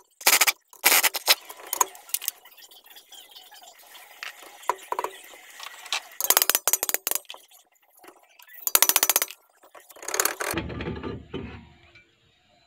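Pneumatic impact wrench hammering in several short bursts of about half a second, loosening fasteners on a Suzuki Gypsy's rear brake drum. Near the end comes a lower, rough scraping for about a second and a half as the brake drum is worked off the shoes.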